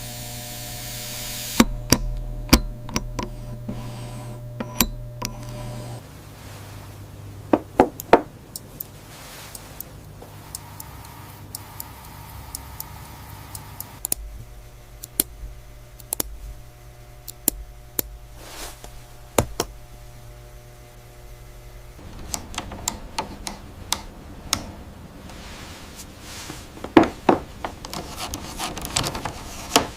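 Small hand tools clicking and tapping on hard parts at a workbench, irregular sharp clicks with some quick clusters, over a steady machine hum that shifts in pitch and level every several seconds.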